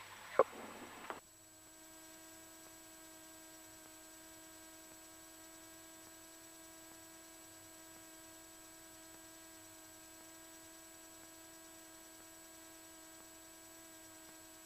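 Faint steady hum with several steady tones in a Cessna 172's cockpit audio, the airplane parked with engine and electrics still on just before shutdown.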